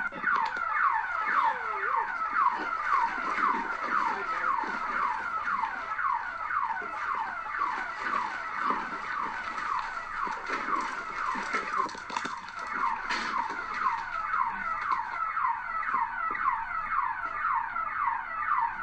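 An electronic alarm sounding: one high chirp that falls in pitch, repeated about four times a second without a break, stopping suddenly at the end.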